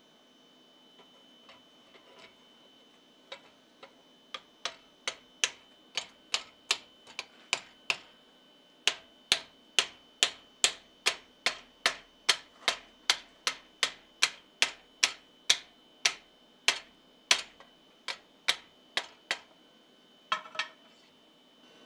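Hand hammer striking a red-hot steel joint clamped in a vise, seating the part onto its tenon for a shrink fit. Sharp metallic blows, about two to three a second, start light and grow much harder, then stop near the end with two last blows after a short pause.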